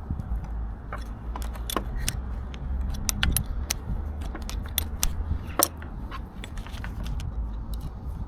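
Light metallic clicks and jingling, irregular and spread throughout, from hand tools and the clutch cable fittings being worked while a new clutch cable is adjusted on a motorcycle. A steady low rumble runs underneath.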